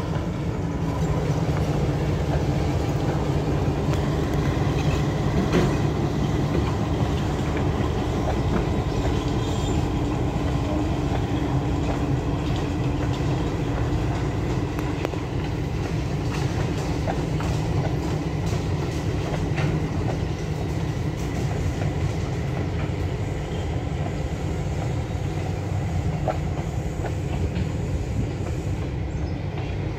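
Railroad train cars rolling past at a steady pace over a crossing, wheels clicking irregularly over the rail joints above a steady low rumble.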